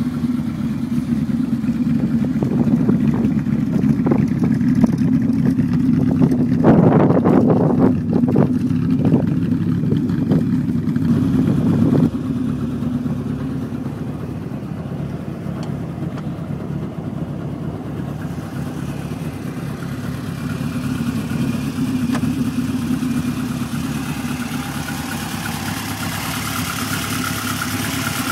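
TVR Cerbera engine idling steadily, with a few short louder bursts about seven to eleven seconds in.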